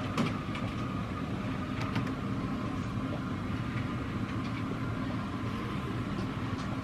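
Steady low rumble of road noise inside a moving car, with a few faint clicks.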